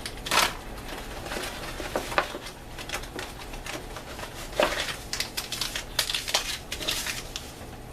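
Plastic MRE ration packets rustling and crinkling as they are handled, with scattered short taps and clicks.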